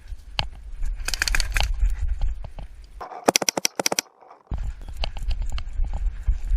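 Paintball markers firing quick strings of shots, a run of sharp pops about a second in and another fast burst around three seconds in, over a steady low rumble.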